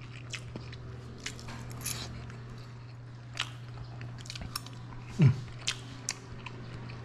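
Close-up chewing of a mouthful of sausage and fried egg, with scattered light clicks of a fork and spoon on a ceramic plate over a steady low hum. About five seconds in, a short voiced 'mm' falls in pitch.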